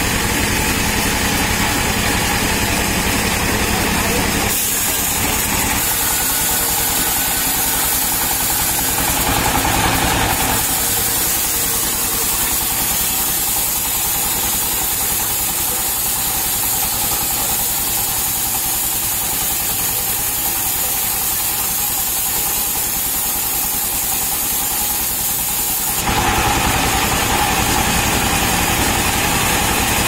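A stationary engine running steadily, driving a sawmill band saw that is cutting a palm log, with a steady hiss over the engine's running. The sound shifts abruptly a few times, about four, ten and twenty-six seconds in.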